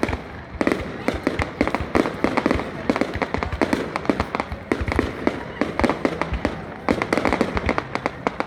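Fireworks going off in a fast, irregular string of sharp bangs and crackles, several a second.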